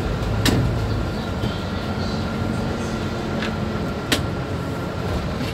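Mercedes-Benz Citaro C2 city bus running, heard from inside the passenger cabin: a steady low drone with a thin steady whine above it. A few sharp clicks or rattles stand out, the loudest about half a second in and again about four seconds in.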